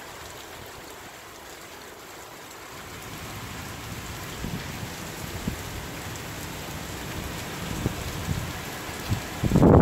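Heavy hurricane rain pouring down in strong wind, growing louder a few seconds in. Near the end a gust buffets the microphone loudly.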